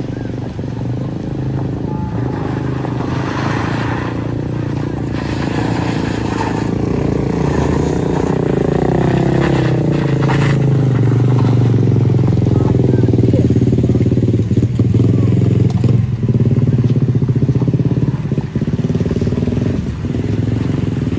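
Car and motorcycle engines labouring up a steep unpaved climb close by: a steady engine drone that grows louder, its pitch shifting as the engines rev through the middle.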